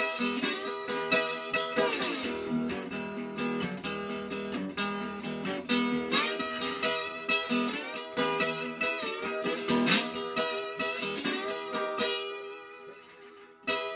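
Höfner Congress archtop acoustic guitar played with no effects: a short passage of picked notes and strummed chords with a bit of a twangier sound. The playing dies away near the end and one last note is struck just before it stops.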